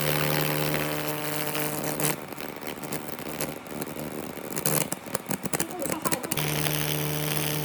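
A workshop power tool's electric motor running with a steady hum. About two seconds in it gives way to irregular clattering and scraping with sharp clicks, and the hum returns about six seconds in.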